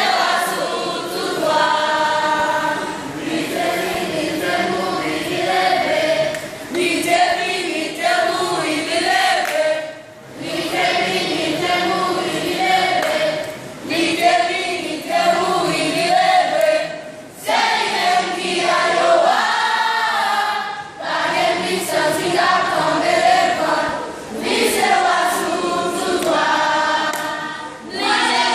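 Children's choir singing together, in phrases of a few seconds with short breaks between them.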